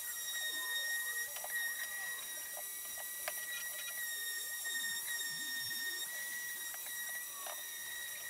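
Ridgid random orbital sander running on plywood with a steady high whine, and scattered light clicks and taps throughout.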